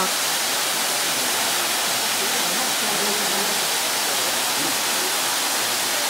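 Waterfall pouring down a rock face into a plunge pool: a steady, even rushing hiss.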